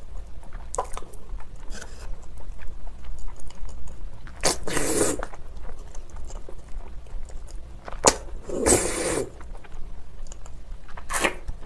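Close-miked eating of spicy cold noodles: wet chewing and clicking mouth sounds throughout, with two loud, long slurps of noodles, one about four and a half seconds in and one about eight and a half seconds in, and a shorter one near the end.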